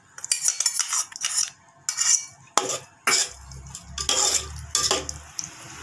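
Metal spoon and flat spatula scraping and clattering against an aluminium pot, stirring curd into a thick chicken gravy in a run of irregular strokes. A low hum comes in a little past halfway.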